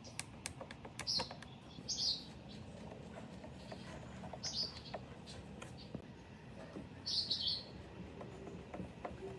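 Hand screwdriver driving screws through a loudspeaker's metal trim ring into the cabinet: light clicks of the tool with four short, high squeaks as the screws turn and bite.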